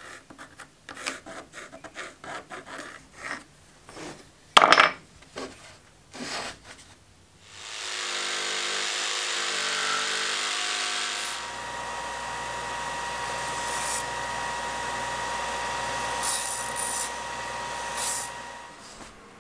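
Workshop sequence: pencil scratching and light knocks of wood being handled, with one loud knock about four and a half seconds in; then a cordless jigsaw cutting a hardwood blank for a few seconds; then a Ryobi 4×36-inch belt sander running with a steady whine, rising briefly twice near the end as the wood handle piece is pressed to the belt.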